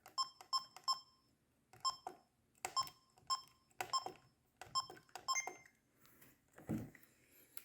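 Sony Mavica MVC-FD92 digital camera's self-timer beeping as it counts down: a short electronic beep about every half second, with a different, higher beep a little past five seconds in. A soft thump follows near the end.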